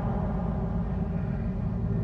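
Dark ambient music: a steady low rumbling drone with faint held tones above it.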